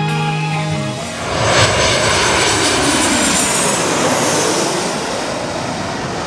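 Airplane flying over: a loud, steady rushing sound whose pitch slowly falls as it passes. A music track cuts off about a second in.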